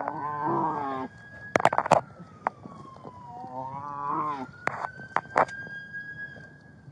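A man being restrained crying out in distress: two drawn-out wordless yells that waver in pitch, one at the start and one about four seconds in. Between them come loud knocks and rustling of clothing rubbing against the body-worn camera.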